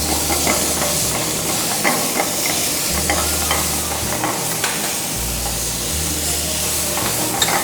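Chopped vegetables frying in hot oil with a steady sizzle while being stirred, a utensil clicking against the pan now and then.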